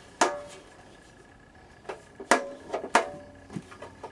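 Sharp clinks and knocks of a replacement drill-press motor pulley being handled and fitted on its motor shaft: three loud clinks with a short ring, the first just after the start and two more between two and three seconds in, with lighter knocks between.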